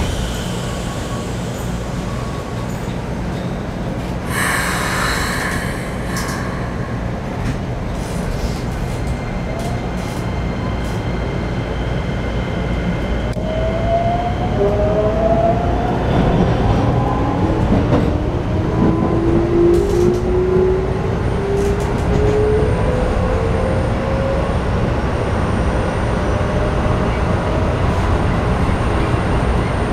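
Keikyu New 1000 series train's Toyo IGBT-VVVF inverter and traction motors as the train pulls away: several tones whine up in pitch together as it accelerates, over a steady rumble of wheels on rail. There is a brief hiss about four seconds in.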